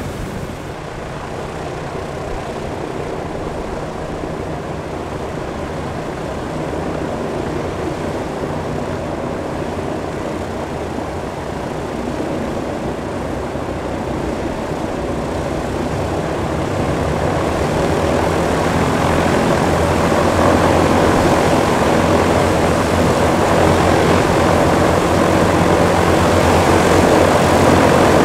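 A Lisunov Li-2's two ASh-62IR nine-cylinder radial piston engines running steadily with propellers turning. The sound grows louder over the second half as the aircraft taxis.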